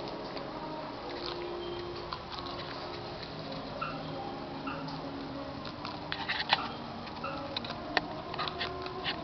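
Pet guinea pigs moving and nibbling: irregular small clicks and patter, denser after about six seconds in, with short faint high notes recurring about once a second.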